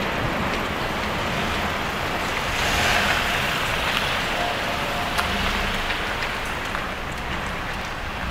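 Steady rumble of a passing vehicle, swelling about three seconds in, with a faint thin squeal near the middle.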